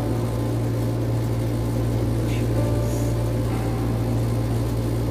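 A steady low hum runs unbroken, with a faint tick or two in the middle.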